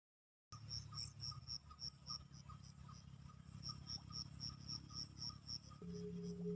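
Faint insects chirping in an even rhythm, about four high pulses a second, with a lower pulsing call alongside, after a brief silence. Near the end a steady low musical drone comes in.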